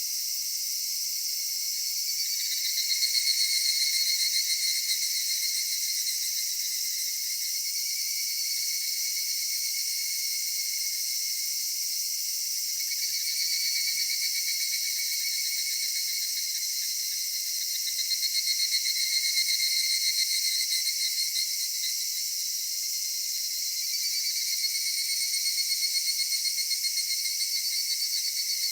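Cicadas singing in chorus: a steady high-pitched shrill, with pulsing calls that swell up for a few seconds at a time and fade again, several times over.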